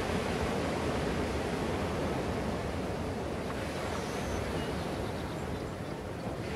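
Ocean surf breaking along a sandy beach, heard as a steady rushing wash, with some wind mixed in.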